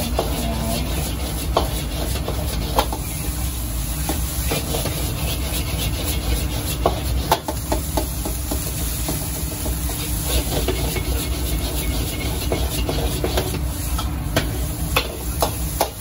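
Metal ladle scraping, stirring and clinking against a carbon-steel wok as rice is stir-fried, with the food sizzling. Irregular sharp clinks come over a steady low rush throughout.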